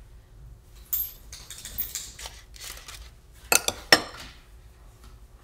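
Metal spoon clinking and scraping against a container and plate as salsa is spooned onto a quesadilla wedge, with a quick cluster of sharp clinks about three and a half seconds in.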